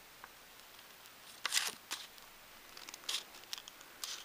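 Small scissors cutting through several fused layers of fantasy film, a thin iridescent plastic film: a few separate crisp snips, the first about a second and a half in and the last near the end.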